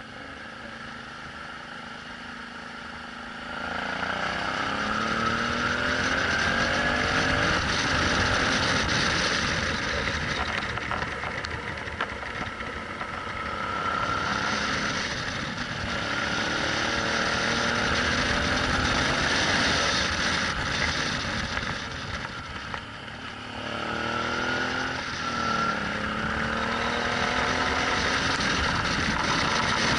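Suzuki V-Strom 650's V-twin engine accelerating through the gears: its pitch rises in several runs, each broken off by a gear change. It is quieter for the first few seconds, then gets louder, easing off briefly a little past the middle. A steady rush of wind and road noise runs underneath.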